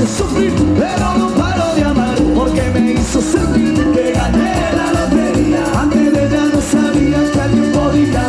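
Cuarteto dance music with a steady beat: a band passage with no transcribed vocals.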